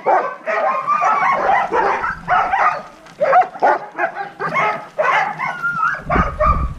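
A yard full of sled dogs barking, yipping and whining all at once, many voices overlapping without a break: the dogs are worked up with excitement before a run. A low rumble joins near the end.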